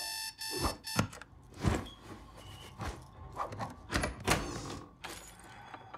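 A digital alarm clock beeping twice, then a run of sharp clicks, knocks and rattles as door locks and a chain are undone.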